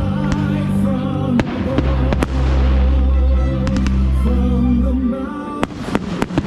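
Fireworks bursting with sharp bangs over loud show music with deep bass notes; a rapid run of bangs comes near the end.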